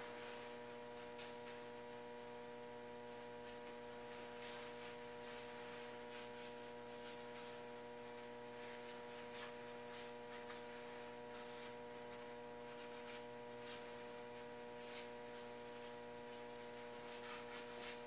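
A faint steady hum made of several steady tones, with occasional faint, brief scuffs and taps scattered through it.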